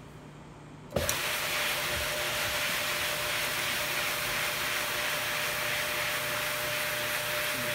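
Single-disc rotary floor buffer starting suddenly about a second in, then running steadily: a constant motor hum over a broad whirring hiss as its pad spreads hardwax oil over reclaimed softwood floorboards.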